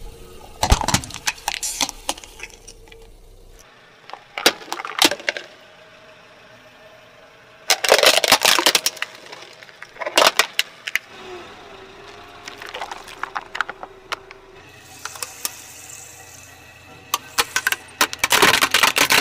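Hard plastic toys cracking and crunching under a car tyre as it rolls over them. The sound comes in about six separate bursts of sharp crackling, each a few crushes long.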